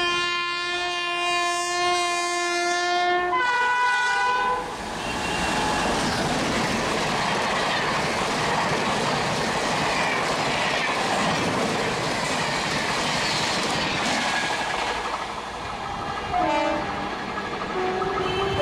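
Electric locomotive horn: one long steady note of about three seconds, then a shorter, higher blast. A fast express train then rushes past with loud wheel and rail clatter. Near the end another train gives a brief falling horn note.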